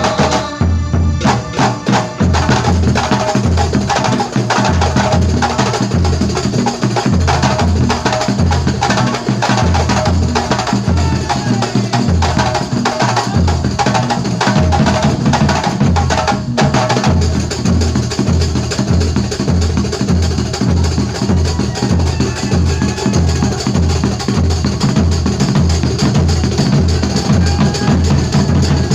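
Kuntulan ensemble of terbang frame drums playing a dense, fast interlocking rhythm over a steady deep drum beat of about two strokes a second, with a brief break about halfway through.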